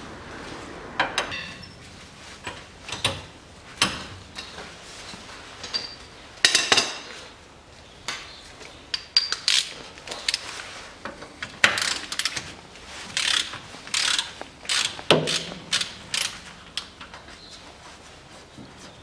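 Ratchet wrench clicking in short, irregular runs of strokes as it works the square-drive filler plug on a rear axle differential.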